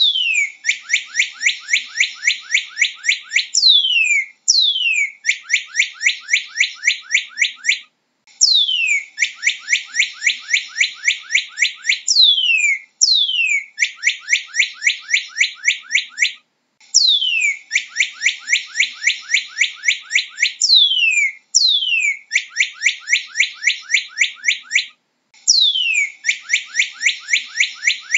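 Northern cardinal singing: loud, clear whistles that slide steeply downward, alternating with fast runs of short repeated notes, in phrases of about four seconds separated by brief pauses.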